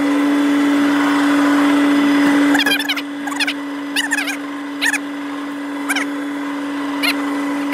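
A machine running with a steady hum, louder and hissier for the first two and a half seconds. Short high chirps come over it roughly once a second after that.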